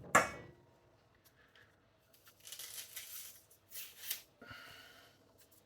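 Dry, papery onion skin being peeled back and torn off by hand, in a few short rustling bursts.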